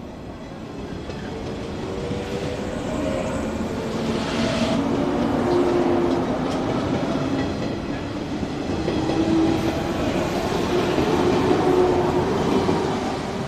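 JR 115 series electric train pulling out and accelerating past: its DC traction motors hum with several steady tones, and its wheels click over the rail joints. The sound grows louder as it gathers speed, then falls away near the end as the last car passes.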